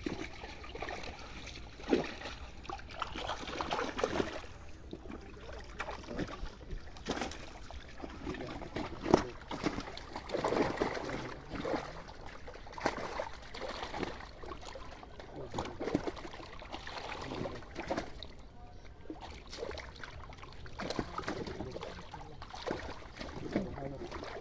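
Pond water splashing and sloshing irregularly as fishermen work a net, with scattered sharp splashes and knocks, the loudest about 2 and 9 seconds in.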